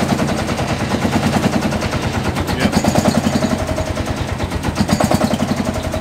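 Old tractor engine running loudly just after starting, a rapid, steady train of exhaust beats.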